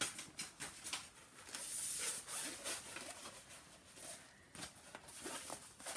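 Rolled diamond painting canvas being unrolled and handled, its sheet and cover paper rustling and rubbing with scattered crinkles.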